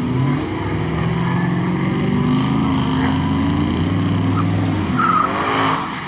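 Loud race-car engine running at low speed as the car rolls away, its pitch wavering up and down. There is a brief high squeal about five seconds in.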